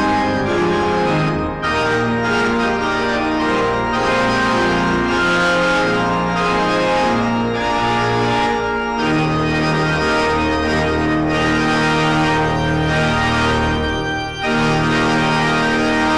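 Three-manual organ played in sustained full chords over held bass notes. There are brief breaks between phrases about a second and a half in and again near the end, where a new loud chord comes in.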